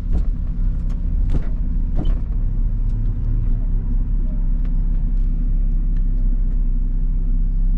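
Steady low engine and road drone heard from inside a car's cabin while driving in the rain, with a few faint clicks.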